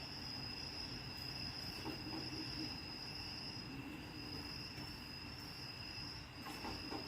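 Radio-control transmitter, switched on, giving off a steady high-pitched electronic whine with a fainter lower tone beneath it over a low hiss: the unwanted noise the transmitter makes once powered up.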